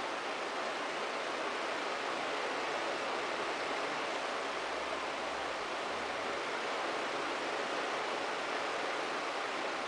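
Steady, even hiss with no other sound.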